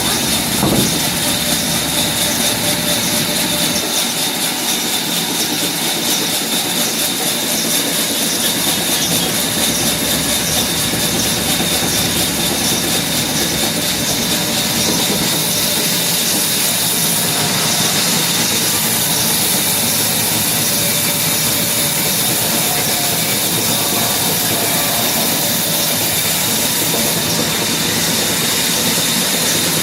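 Power saw running steadily while it cuts through a heavy piece of red wood, a constant high-pitched whine over loud hiss.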